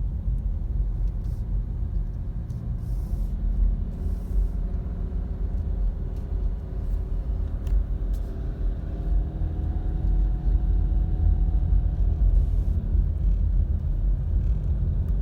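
Car driving, heard from inside the cabin: a steady low road and engine rumble, with a faint engine tone that rises a little and fades in the middle.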